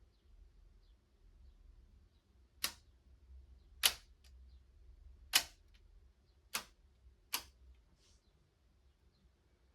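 Kato N-scale electric turntable clicking as its bridge indexes from track to track: five sharp clicks spaced one to one and a half seconds apart, each followed by a faint tick.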